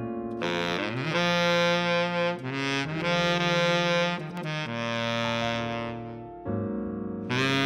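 Background music: a melody of long held notes over a moving bass line. It thins out about six seconds in, then comes back fuller just before the end.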